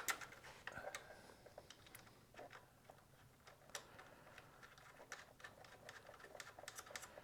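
Faint, irregular clicks and light taps of hand tools and small metal parts being worked on an exhaust bracket held with locking pliers.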